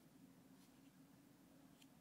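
Near silence: a faint steady low hum of room tone, with one or two barely audible ticks.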